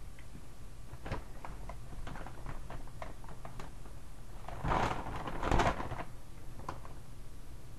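A Doritos chip bag crinkling and rustling as it is lifted and tipped up, loudest in two bursts about halfway through, with scattered small crackles before them.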